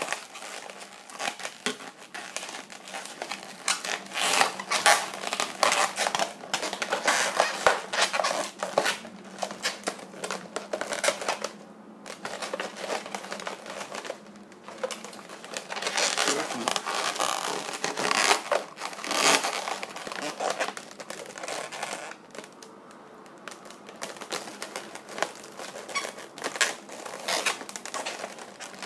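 Inflated latex twisting balloons squeaking and rubbing against each other as they are twisted and squeezed by hand, in irregular bursts with short pauses.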